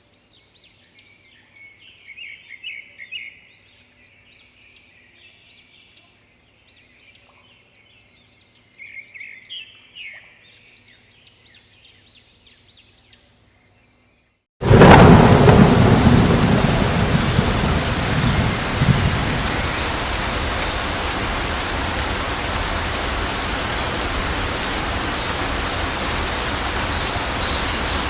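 Birds chirping faintly, then a moment of silence. About halfway through comes a sudden loud crack of thunder whose rumble fades over a few seconds into a steady downpour of rain.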